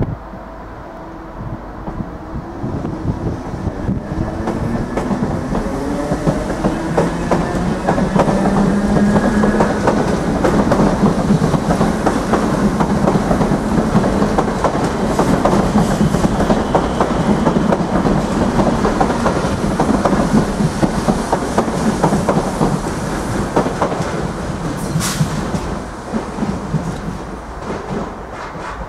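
Irish Rail 8300 class DART electric multiple unit pulling away: its traction motors whine, rising in pitch as it accelerates, and its wheels clatter over the points and rail joints. It is loudest as the carriages pass, then eases off as the train runs away.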